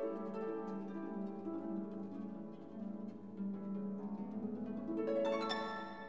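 Background music of plucked string notes, a gentle melodic line over sustained lower notes.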